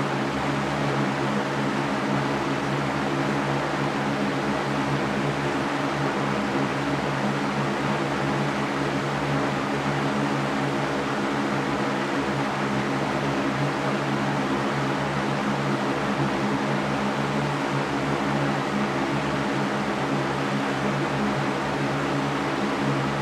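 Electric fan running steadily: an even whooshing of moving air over a low motor hum.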